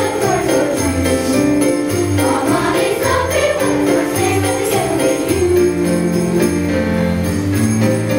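A children's choir sings with instrumental accompaniment: a bass line stepping from note to note under the melody, with jingle bells shaking steadily throughout.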